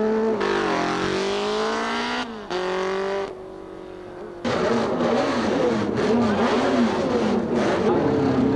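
Racing motorcycle engines. One engine accelerates with its pitch rising steadily for about two seconds, and then another tone falls away. After a short quieter lull, the engine note swings rapidly up and down again and again until the end.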